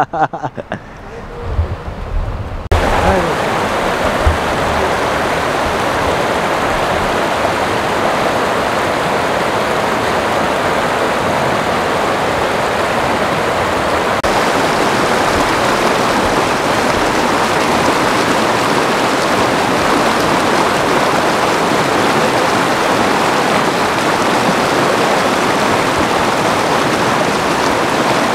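Shallow mountain stream rushing over boulders: a steady wash of water that starts suddenly about three seconds in and holds even throughout. Before it there are a few faint low thumps.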